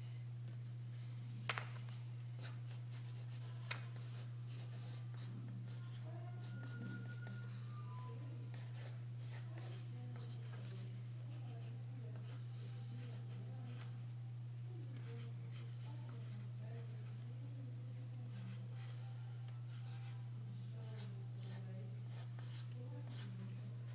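Pencil scratching across drawing paper in many short strokes, over a steady low hum. Two sharp clicks come about a second and a half in and again a couple of seconds later.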